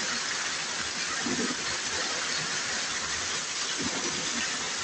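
Heavy rain pouring down, with streams of water falling close by and splashing onto the ground, a steady hiss.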